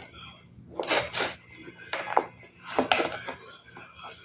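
Close-up eating sounds: a few short, crisp crunches or clicks about a second apart, over a faint steady hum.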